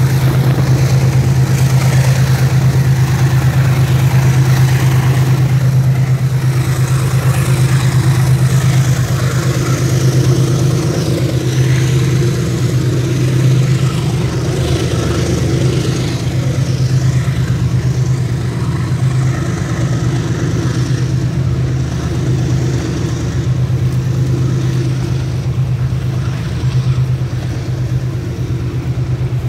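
Motorcycle engine running with a steady low hum, heard from the moving bike over a constant rushing noise.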